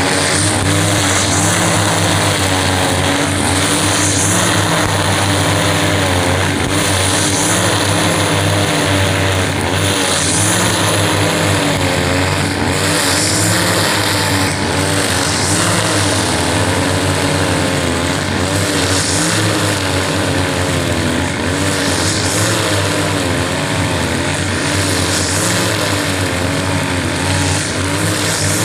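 Several two-stroke backpack brush cutters running together at high speed, their engine notes wavering up and down against each other as their nylon trimmer line cuts grass.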